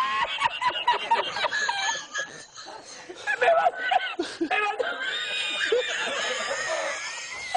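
A man laughing hard in high-pitched, broken fits.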